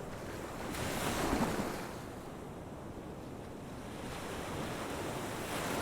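Steady rushing noise like surf or wind, swelling about a second in and again more gently near the end.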